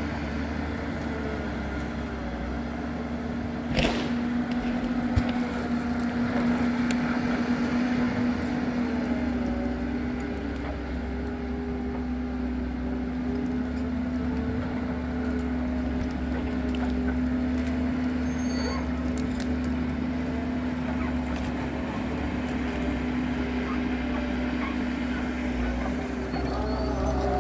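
HSM 208F forestry forwarder's diesel engine running steadily under load as the machine drives along the track, a steady hum with a higher whine that wavers in pitch. A single sharp knock about four seconds in.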